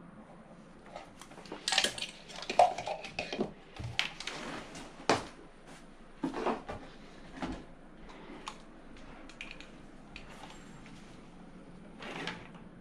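Handling noise: a run of clicks, knocks and rustles as objects are picked up and set down, busiest from about two to five seconds in, thinning out after that, with one more rustle near the end.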